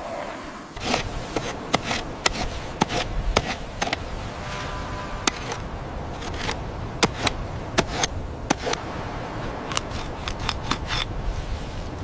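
Stone tools cutting and scraping at hide and bone, heard as irregular sharp scrapes and clicks over a low steady rumble.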